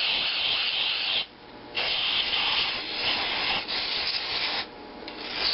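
Aerosol cleaner sprayed through a red extension straw into the intake port of a Briggs & Stratton engine block, hissing in bursts: one running on to about a second in, two more after a short gap, and a fourth starting near the end.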